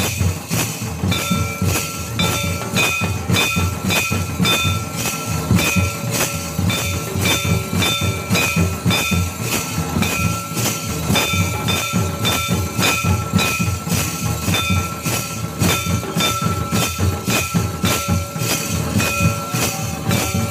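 Santal tumdak' barrel drum and tamak' kettle drum beaten in a fast, even rhythm of about two to three strokes a second, with a steady high tone running over the beats.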